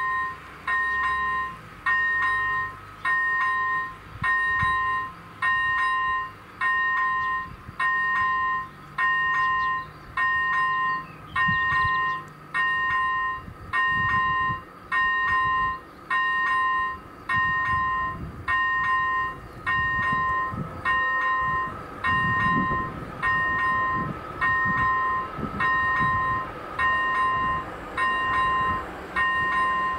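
Level crossing's electronic warning bell sounding a steady two-tone ding about once a second while the warning is active. In the second half a low rumble builds under it as a train approaches.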